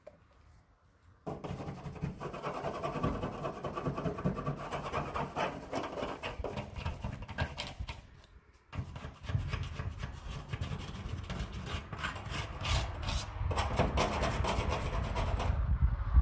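Rapid rubbing and scraping strokes on wood, in two long runs with a short break about eight and a half seconds in.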